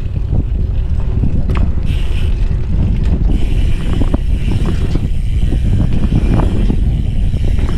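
Wind buffeting the microphone outdoors, a loud, steady low rumble, with a few faint clicks.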